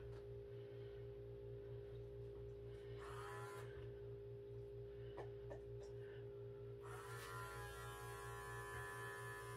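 Small electric pet clipper running with a faint, steady hum as it trims a standard poodle's face.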